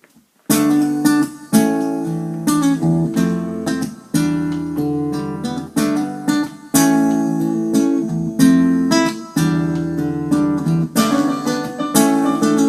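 Acoustic guitar music: chords strummed and left to ring, starting about half a second in.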